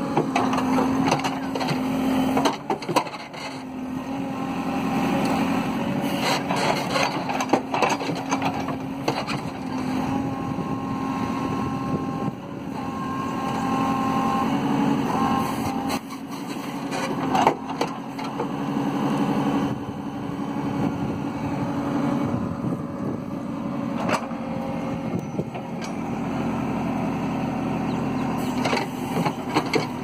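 JCB backhoe loader's diesel engine running hard as the machine levers itself out of deep mud with its backhoe arm and front bucket. A higher whine rises and falls through the middle, and scattered knocks and clunks sound over the engine.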